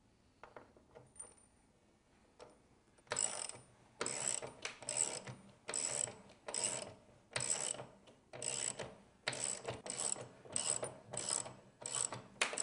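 Socket ratchet wrench driving a half-inch galvanized lag screw into a pre-drilled deck ledger: after a few light clicks as the socket goes on, repeated ratcheting strokes start about three seconds in, about one and a half a second, as the handle is swung back and forth.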